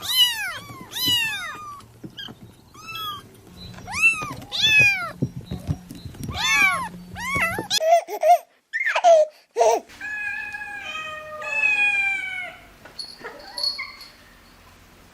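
Kittens mewing: short, high-pitched mews that rise and fall, repeated about once or twice a second. About halfway through the sound changes to a different clip of cat meows, some longer and held more level.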